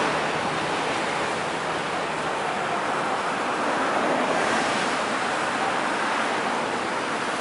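Steady hiss of street traffic, cars passing on the road with their tyres and engines blending into an even wash of noise.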